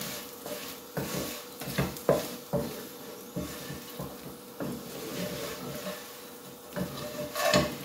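Potato wedges sizzling in oil in a frying pan while a wooden spatula stirs and turns them, with irregular knocks and scrapes of the spatula against the pan.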